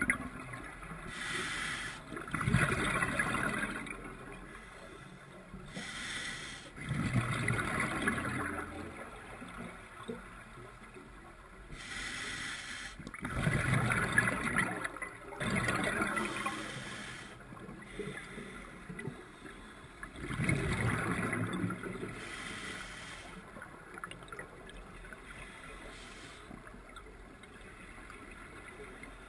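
Scuba diver breathing underwater through a regulator: a short hiss on each inhale, then a longer bubbling rush of exhaust bubbles, about every six seconds. Four strong breaths, then fainter ones in the last few seconds.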